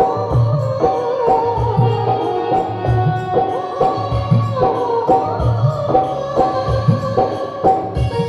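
Indian folk-style music with a steady drum beat, about two hits a second, under a gliding melody line.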